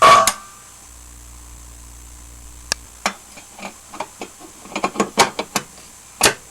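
A Standard Electric fire alarm bell sounds its last single stroke, which rings and dies away within about half a second. After a pause with a low hum, a run of irregular mechanical clicks and knocks begins about three seconds in.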